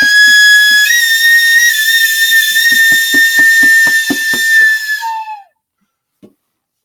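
A high whistle held for about five seconds, stepping up slightly in pitch about a second in and sagging as it stops, over a steady beat on a hand drum. Both stop about five seconds in.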